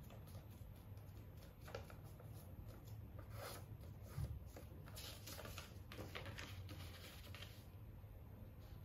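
Sheet of paper being folded and creased by hand: faint, irregular crinkles and rustles, with a soft thump about four seconds in.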